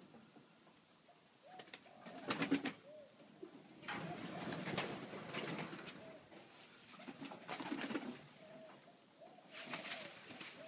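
Domestic pigeons cooing in several bursts of a second or two, some with rapid clicking mixed in.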